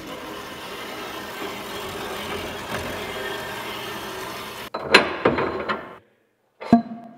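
Horizontal metal-cutting bandsaw running steadily as its blade cuts through a 1.5-inch metal bar; the sawing stops suddenly a little before five seconds in. A few sharp knocks follow, the last one ringing briefly.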